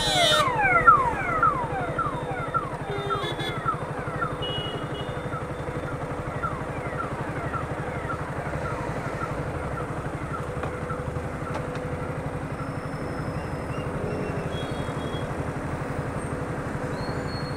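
KTM Duke motorcycle engine running steadily under the rider, heard from the bike, with a run of short falling whines over the first few seconds.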